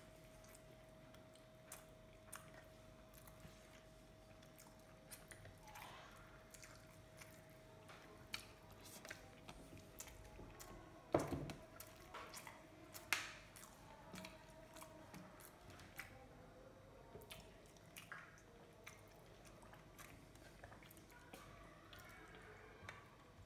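Faint eating sounds: mouth chewing and fingers mixing rice on a plastic plate, with scattered small clicks and two sharper ones around the middle. A faint steady hum runs underneath.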